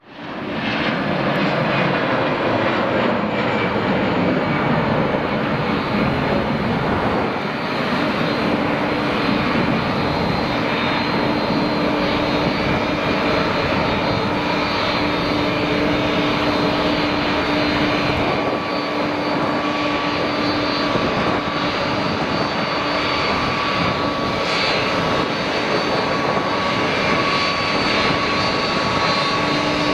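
Airbus A330 airliner's jet engines running at taxi power, a steady roar with a held low whine that comes and goes and a higher whine joining about two-thirds of the way through.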